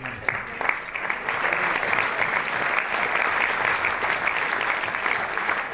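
An audience applauding: scattered claps thicken within the first second into steady, dense applause for an award recipient who has just been named.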